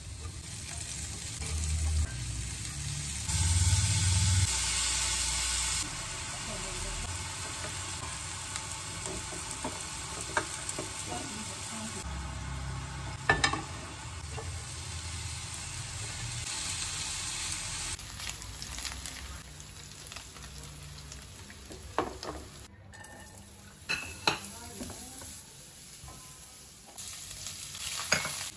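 Onions and garlic frying in oil in a non-stick pan, a steady sizzle while a silicone spatula stirs them, with a few sharp clicks along the way.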